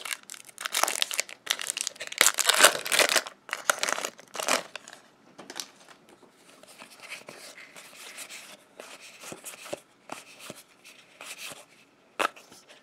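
Foil booster-pack wrapper being torn open and crinkled for about the first four and a half seconds, then softer rustling and flicking of trading cards handled in the hands, with a sharp click near the end.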